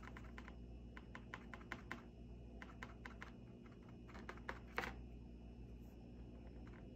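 Faint, irregular light clicks and taps of a paintbrush dabbing paint onto a plastic water bottle, the thin plastic clicking under the brush and fingers, with one slightly louder tap about five seconds in.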